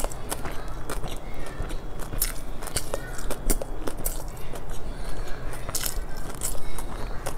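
A person chewing a full mouthful close to a clip-on microphone, with many irregular sharp mouth and food clicks.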